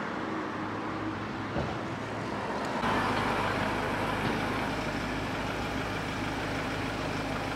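Steady city street background with traffic noise; about three seconds in it changes to a fuller, steady low rumble.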